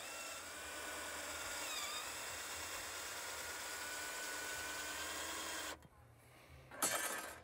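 Faint outdoor background with a few thin whistled calls that slide up and down in pitch, then one long steady whistle. It cuts out for about a second near the end, followed by a brief high hiss.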